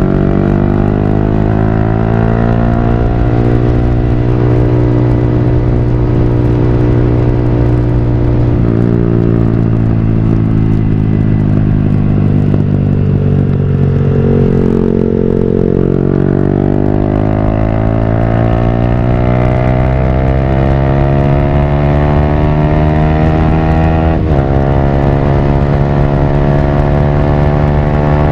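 Yamaha R15 V3's single-cylinder engine running through a Villan Pro1 full-system exhaust under way. The note climbs as it pulls through the revs, changing gear with a sudden drop in pitch about nine seconds in and again near the end, and eases off and picks up again midway.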